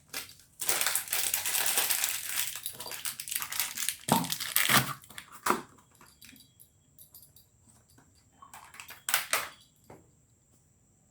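Crinkly rustling of kitchen items being handled for a few seconds, then a few short knocks, and another brief rustle near the end.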